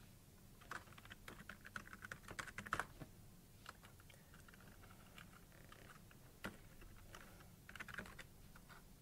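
Faint keystrokes on a computer keyboard: a quick run of typing over the first three seconds, then scattered single key presses and a short burst of typing near the end.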